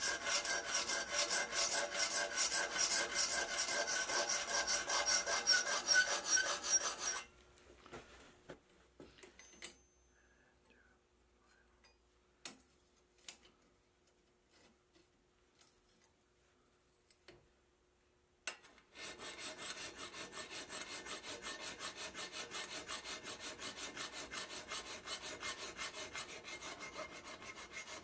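Hand file rasping over the faces and corners of a forged steel reamer in a vise, in steady back-and-forth strokes, to finish-shape its cutting edges. About seven seconds in the filing stops, leaving only a few light clicks and taps for some ten seconds, then it resumes, quieter, in the same even rhythm.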